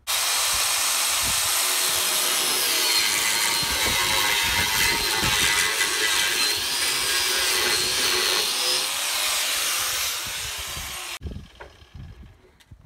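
Angle grinder cutting into a rusted steel chassis rail: a loud, steady screech with a wavering whine that stops suddenly about eleven seconds in.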